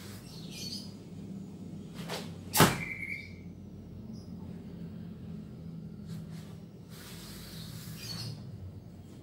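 A karateka's kata movements: a small snap about two seconds in, then a loud, sharp crack of a quick technique half a second later, over a steady low hum.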